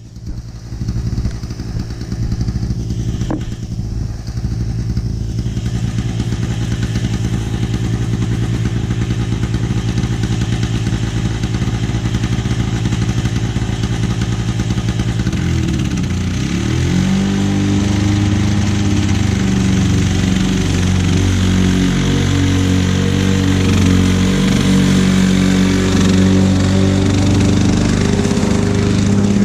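A 1991 Lawn-Boy M series mower's two-stroke engine running. About halfway through, its pitch dips briefly, then it runs louder and more unevenly as it works.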